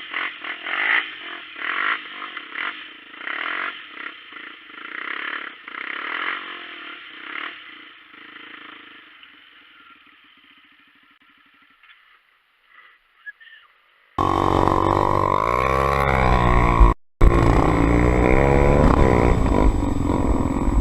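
Honda XR250 Tornado single-cylinder four-stroke dirt bike engine revving in repeated bursts, fading away into the distance. About fourteen seconds in it comes back loud and close, revving up and down.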